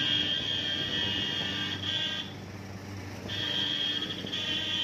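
Jeep-mounted fogging machine running: a steady low drone under a loud, high buzzing whine that drops away about two seconds in and comes back about a second later.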